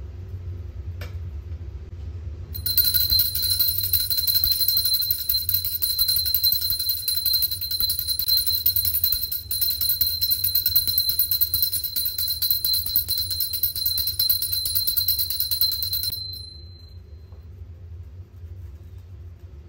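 Small brass hand bell (puja ghanti) rung rapidly and without pause during aarti worship: a steady, high, bright ringing that starts about two and a half seconds in and stops suddenly about 16 seconds in.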